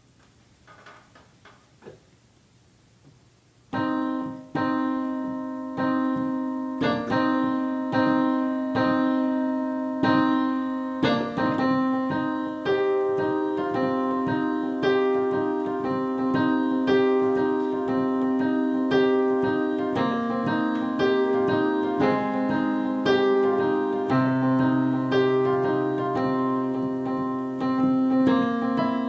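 Digital piano playing a piece of evenly repeated chords, starting about four seconds in after a near-quiet pause; a low bass note joins near the end.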